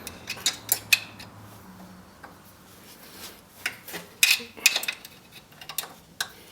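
Light metallic clinking and tapping of steel mounting bolts and hand tools as the winch bolts are put in loosely by hand. The clinks come in small clusters, about a second in and again around four to five seconds in.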